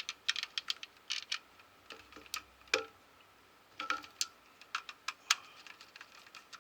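Small irregular clicks and taps of screws and a screwdriver as the screws go back into the plastic cover of an old power socket strip.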